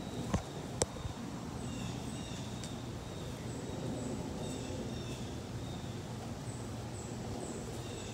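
Outdoor ambience: a bird's short, high chirps repeating again and again over a steady low background noise, with two sharp clicks within the first second.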